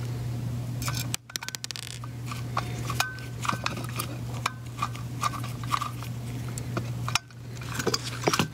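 Small irregular metallic clicks and clinks of a screwdriver working the screws that hold the metal surround onto a projector lamp module's housing, over a steady low hum.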